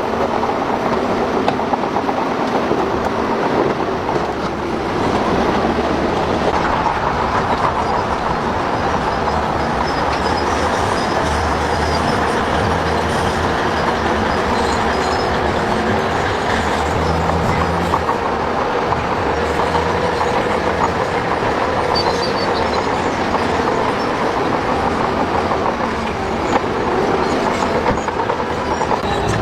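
Heavy earthmoving machinery working: a steady diesel engine with continuous metallic clanking and occasional high squeals, typical of steel tracks.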